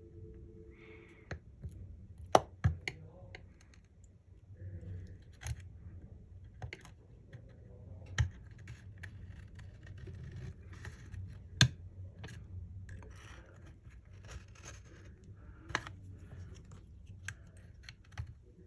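Small repair tools scraping and clicking against a phone's frame and screen edge while the glued screen is pried away from the chassis. There are a few sharp clicks, the loudest about two and a half seconds, eight seconds and eleven and a half seconds in.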